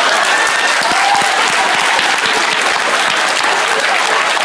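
Audience applauding steadily, a dense roll of many hands clapping.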